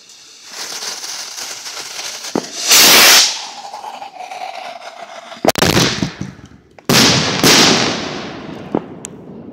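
Consumer fireworks going off close by. A steady hiss leads into a very loud burst about three seconds in, then sharp bangs around five and a half and seven seconds, each trailing off into a fizzing shower of sparks.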